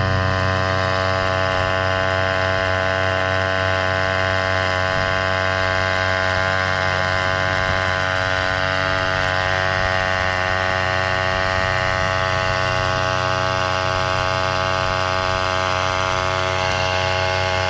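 Portable tyre-inflator air compressor running, pumping air into a car tyre through its hose with a steady, even drone.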